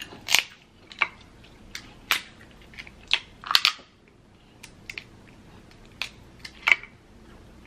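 Cooked Dungeness crab leg shells cracking and snapping as they are broken open by hand: about ten sharp, irregular cracks, some coming in quick pairs.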